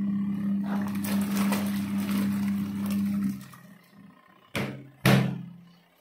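DMR 3 kg portable mini washing machine in wash mode: its motor hums steadily while the pulsator churns the clothes in soapy water, and it stops a little past halfway. Two sharp knocks follow near the end, the second with a brief return of the motor hum.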